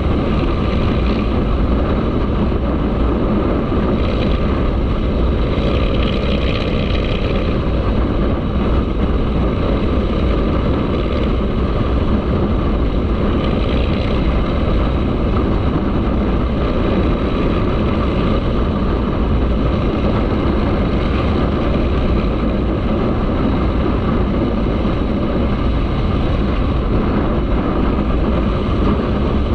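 Motorcycle engine running steadily while riding at speed, with heavy wind rush on the microphone.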